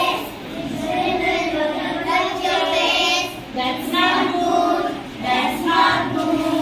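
A group of kindergarten children singing an action song together in unison, in short sung phrases with brief breaks between them.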